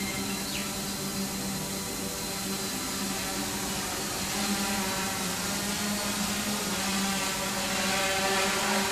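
Quanum Venture quadcopter's Multistar brushless motors and propellers whirring steadily in a low hover, a little louder near the end.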